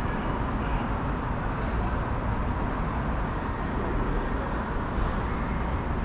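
Steady urban ambience: an even, low rumble of traffic with faint high chirps over it.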